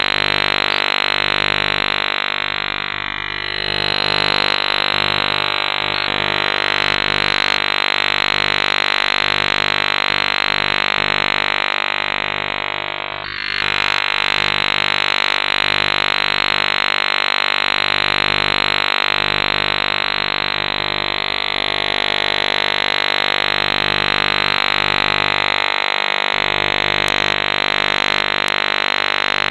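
Harsh, humming electronic tone made of many steady pitches stacked together, with a fuzzy, band-limited sound like radio-received audio. It dips briefly twice, about three seconds in and again about thirteen seconds in.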